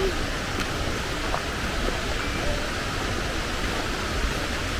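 Bash Bish Falls, a waterfall, rushing steadily as an even wash of falling water.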